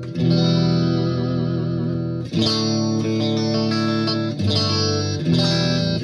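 Electric guitar played straight into the amp with no compressor pedal in the chain: chords struck about four times, each left to ring before the next.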